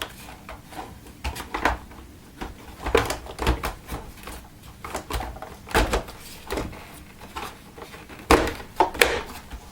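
Plastic housing parts of a Miele S5210 vacuum cleaner being handled and fitted back together: irregular clicks and knocks, with a sharp one a little before six seconds in and two more near the end.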